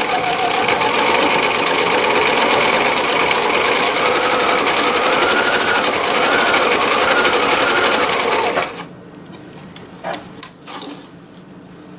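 Husqvarna Viking 980 electric sewing machine running at speed and stitching fabric, its motor pitch wavering slightly. It stops abruptly about three-quarters of the way through, and a few light clicks follow.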